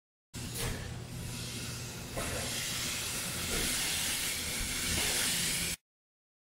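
Airless spray gun hissing steadily as it sprays silicone roof coating, over a steady low hum. The hiss grows a little louder about two seconds in and cuts off suddenly near the end.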